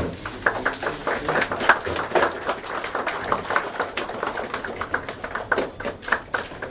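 Camera shutters clicking in a rapid, irregular run as the book is held up for photographs.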